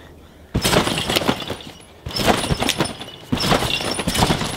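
A person bouncing on a large trampoline. There are three landings about a second and a half apart, each a sudden loud hit on the bed followed by about a second of rattling.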